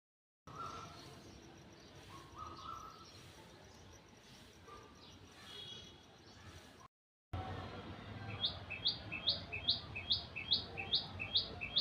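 Birds chirping: scattered faint calls at first, then after a short break one bird repeating a short, high call note about two and a half times a second, over a low background rumble.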